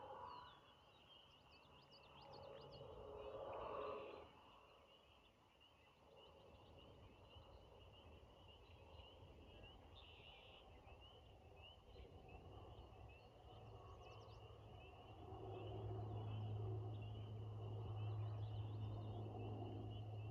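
Faint dusk chorus of frogs: a steady high-pitched trilling that carries on throughout, with a few faint bird chirps in the first few seconds. Lower-pitched calls and a deep steady hum grow louder about three-quarters of the way through.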